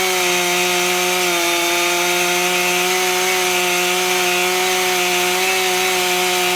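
Two-stroke chainsaw held at full throttle under load, ripping a red alder log lengthwise in a chainsaw mill with a 36-inch bar. The engine note is steady, with a slight dip about a second and a half in.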